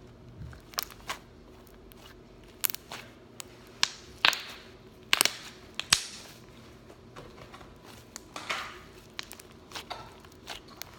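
Homemade slime being squished and pressed by hand, with irregular sharp clicks and pops, loudest in the middle.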